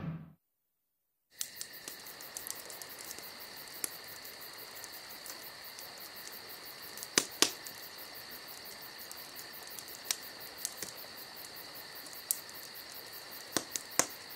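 Steady high insect chirring that starts about a second in, with a few scattered sharp clicks over it.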